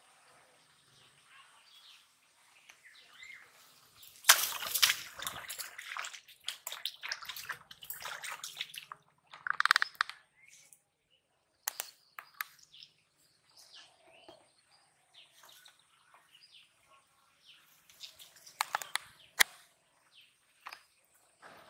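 Splashing and rustling of a hooked fish being pulled from a shallow muddy canal and thrashing on the grassy bank as it is grabbed, loudest about four seconds in. Birds chirp faintly in the background.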